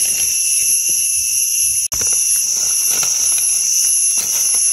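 Steady high-pitched drone of a forest insect chorus, with soft rustling of dry leaf litter and a knife scraping soil off a mushroom stem. The sound cuts out for an instant about two seconds in.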